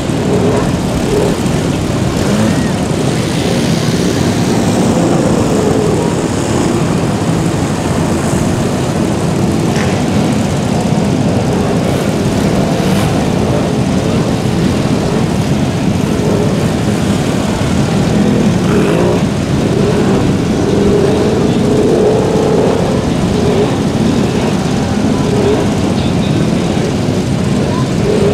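Snorkeled ATV engines revving hard as the quads churn through deep mud and water, the engine pitch rising and falling.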